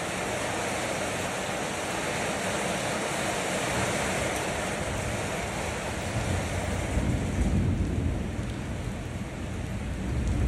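Steady rain falling, an even hiss with no pitch. A low rumble swells up about seven seconds in and again near the end.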